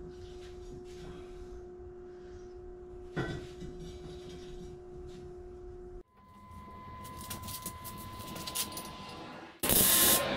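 Steady shop hum with a single metal knock about three seconds in as a bent steel strap is handled. Near the end comes a loud crackling burst of about a second: an arc welder striking a tack weld on the steel.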